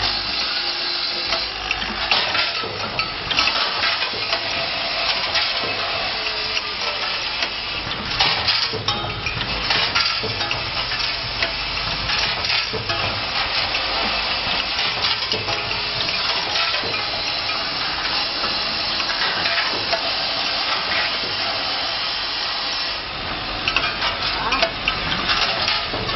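Automatic counting and bagging machine running, its vibratory bowl feeder shaking small white plastic parts: a dense, steady rattle and chatter of parts against metal, with many small clicks and ticks.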